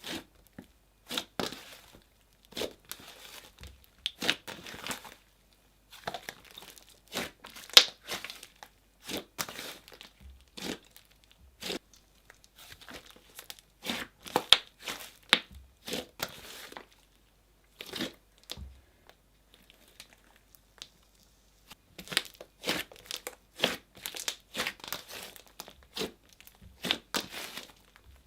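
Clay-based slime being squished and worked by hand, giving clusters of sharp crackling and clicking pops, with a short pause about two-thirds of the way in.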